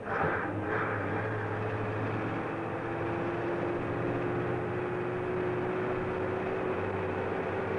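Scania 140-series truck's V8 diesel engine heard from inside the cab: a brief clatter of a gear change at the start, then the engine pulling with a steady drone whose tone rises a little and then holds.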